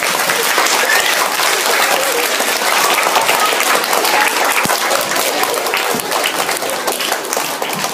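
A hall full of children and adults applauding, a dense, loud run of clapping that eases off slightly near the end.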